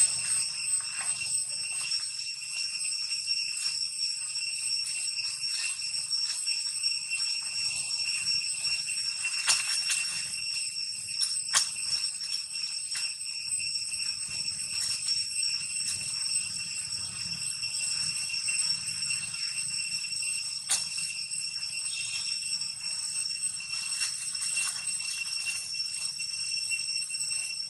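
Steady high-pitched ringing drone that holds unchanged, broken by a few sharp clicks about ten, twelve and twenty-one seconds in.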